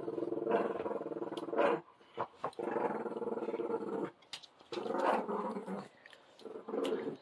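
A Presa Canario puppy and a Boston Terrier growling at each other in play-fighting, in about four long bouts with short breaks, and a few sharp clicks in the gaps.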